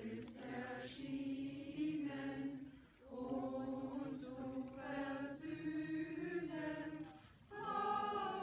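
A group of voices singing a slow song together in long held phrases, with short breaks between phrases about three seconds in and again near the end.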